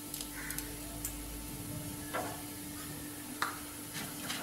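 Hot oil sizzling in a clay pot as urad dal fries for a tempering, with a few sharp ticks. A wooden spatula stirs the pot near the end.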